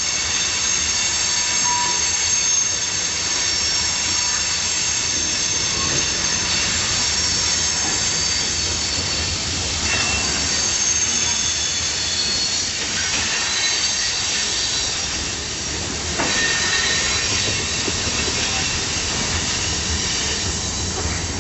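A freight train's steel wheels screeching as the salt cars roll over a switch: several high squeal tones held steadily throughout, with a few wheel knocks around the middle.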